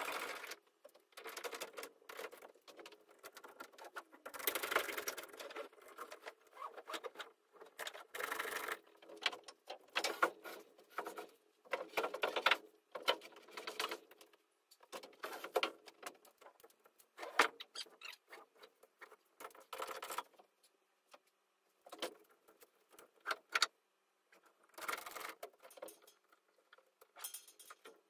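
Irregular short bursts of clattering, scraping and rattling from timber wall framing and board sheathing work, with brief quiet gaps between.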